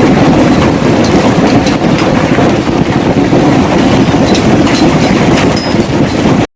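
Hail pelting down hard: a loud, dense rattle of many hailstone impacts over a steady roar, cutting off suddenly near the end.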